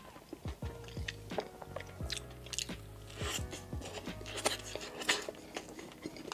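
Close-miked chewing of a bite of turkey club sandwich on toasted bread, with irregular mouth clicks throughout.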